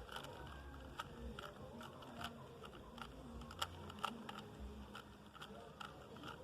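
Rubik's cube being turned in the hands: a quick, irregular run of faint plastic clicks as the layers are twisted, a few a second.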